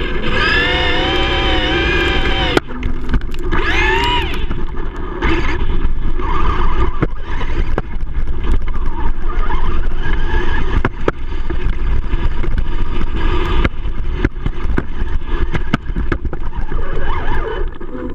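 Traxxas E-Revo electric RC truck heard from on board, driving hard: its motor and drivetrain whine rises and falls in pitch with the throttle, with a quick rising sweep about four seconds in. Under it run the crunch and clatter of its tyres over gravel and dirt, with many sharp knocks.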